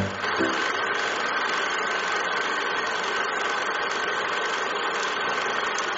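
Film projector running: a steady mechanical whir with a high whine and a fast, even flutter in the hiss. The last notes of music die away about half a second in.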